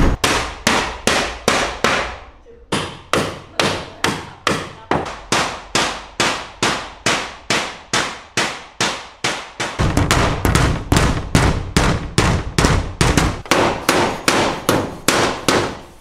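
Hammer blows struck steadily at about three a second, each with a short ringing decay, with a brief pause about two seconds in. For a few seconds past the middle the blows land heavier and deeper.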